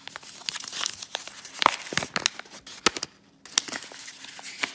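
Yellow wrapping being torn and crinkled open by hand, a run of crisp rustles, crackles and tearing sounds with a brief pause about three seconds in.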